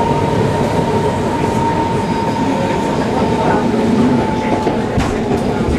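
Naples Metro Line 1 train running between stations, heard from inside the car: a steady loud rumble and rattle, with a thin high whine that fades out about four seconds in.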